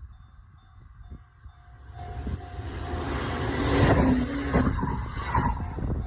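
Level-crossing bell ringing in a steady repeating ding, then an E131-series electric train comes through the crossing. Its rumble and rail noise build from about two seconds in, peak about halfway through and cut off suddenly at the end.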